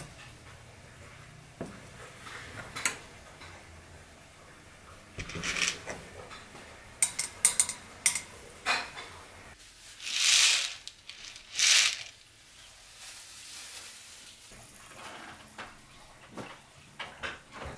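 Scattered clinks and taps of kitchen utensils against a stainless steel pot, with a cluster of sharp clicks as popcorn kernels are dropped into the oil, and two short, louder swishes a little after halfway.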